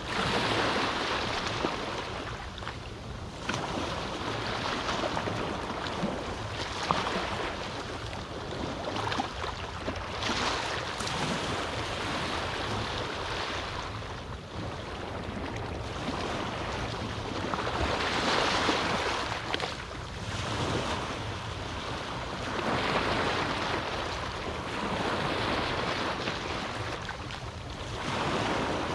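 Small waves breaking and washing onto a beach on a calm sea, a soft rush of surf swelling and fading every few seconds.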